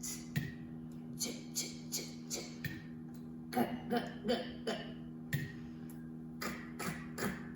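A woman saying phonics letter sounds in quick succession, mostly short hissing and puffed consonant sounds, one after another, with a steady low hum underneath.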